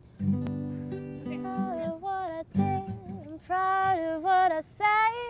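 Acoustic guitar strummed, one chord at the start and another about two and a half seconds in, with a voice singing a short, catchy tune over it from about a second in.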